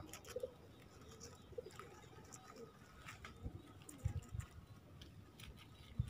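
Birds calling faintly, with scattered short high chirps and a few short low calls around four seconds in.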